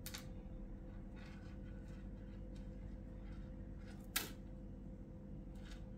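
Faint handling noises of monofilament fishing line being worked between the fingers over a steady low hum, with one sharp click about four seconds in.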